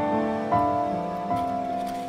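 Slow background piano music, a few notes struck about half a second and again just over a second in, each held and fading.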